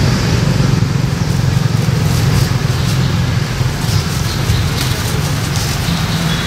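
Steady, loud low motor rumble, like a vehicle engine running close by, with faint ticks and rustles over it from about two seconds in.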